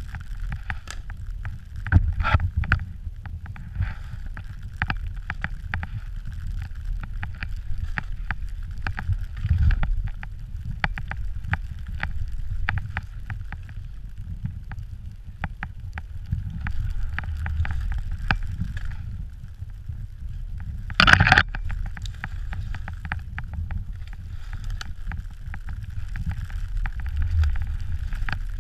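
Skis hissing through deep powder snow, with wind rumbling on a pole-mounted action camera's microphone and scattered clicks and knocks from the camera and pole. There is a louder burst of noise about three-quarters of the way through.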